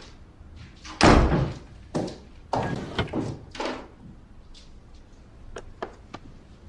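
A door banging shut about a second in, followed by several knocks and thuds, then a few light clicks near the end.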